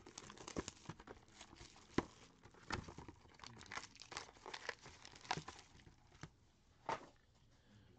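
Plastic shrink wrap crinkling and tearing as a sealed trading-card hobby box is unwrapped and opened, with faint, irregular crackles and light taps of cardboard and card packs being handled.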